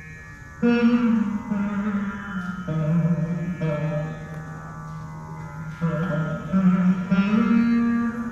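Saraswati veena played in raga Kalyani: a soft held note, then a phrase of firmly plucked notes that ring on and glide in pitch as the string is deflected along the frets.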